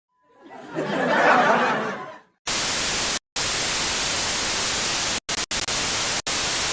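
Sound-effect clip: a short noisy rush that swells and fades, then harsh white-noise static like a television with no signal. The static cuts out abruptly several times, then stops sharply.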